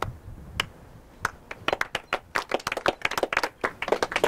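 Small crowd clapping: a few lone hand claps at first, then more people join in, building to scattered applause.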